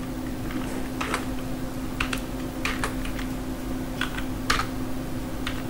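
Computer keyboard being typed on: a dozen or so irregular, separate key presses.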